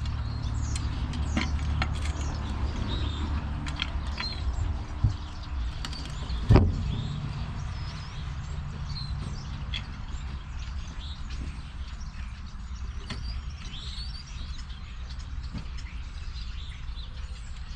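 Small birds chirping over a low, steady rumble that is strongest at first, with two sharp knocks about five and six and a half seconds in, the second one louder.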